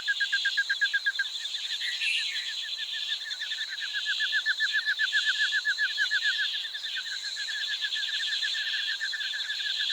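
A high, fast pulsing animal trill, about a dozen pulses a second, that goes on without a break and swells and fades in loudness.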